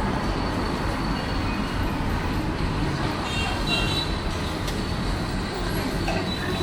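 Steady street ambience with traffic noise.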